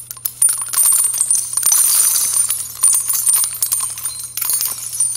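A dense, quick run of small metallic clicks and jingling, a sound effect laid under a title animating onto the screen, over a low steady hum. It pauses briefly about four seconds in and starts again.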